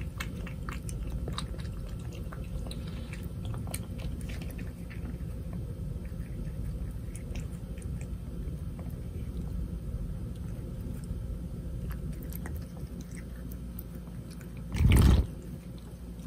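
A Russian Blue cat licking and chewing food off a plate, with small wet clicks mostly in the first few seconds. A single short, loud thump comes near the end.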